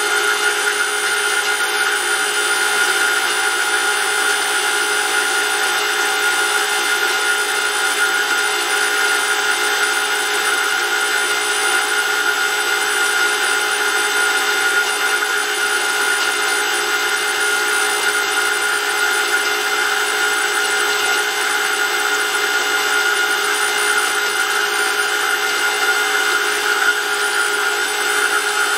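Brushless electric motor driving a bench-test oil pump for a homemade gas-turbine engine, running at a constant speed and pumping hot 0W20 oil. It makes a steady whine of several held tones over a mechanical whirr, with no change in speed.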